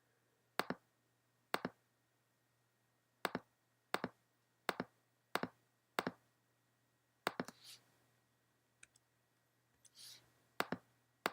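Computer mouse button clicking about ten times at uneven intervals, each click a quick press-and-release pair, over a faint low hum.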